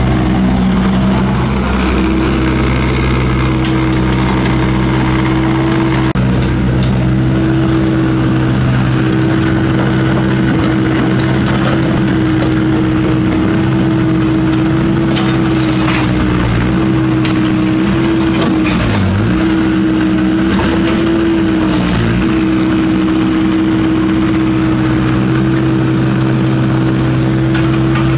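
Kobelco SK50 mini excavator's diesel engine running steadily while it digs and loads; its note briefly sags several times as the hydraulics take load. A few knocks of broken asphalt dropping into the dump truck's bed come around the middle.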